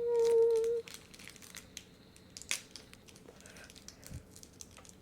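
A short hummed note from a voice, then faint, scattered crinkling and tearing of small plastic packaging as a Shopkins blind pack is opened.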